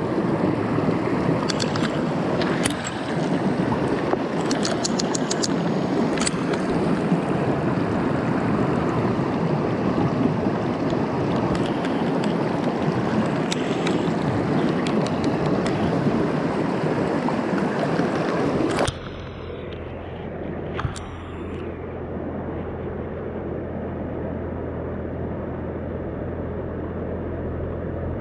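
Mountain stream rushing and splashing over rocks close by, with a few sharp clicks from handling early on. About two-thirds of the way in it changes abruptly to a quieter, steadier flow of a wider river with a low, even rumble underneath.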